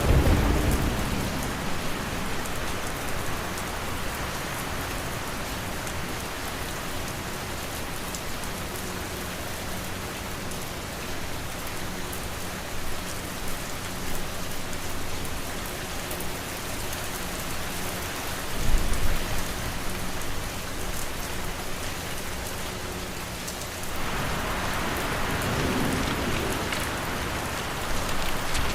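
Steady rain falling, with low rumbles of thunder at the start and again about two-thirds of the way through. The rain grows heavier near the end.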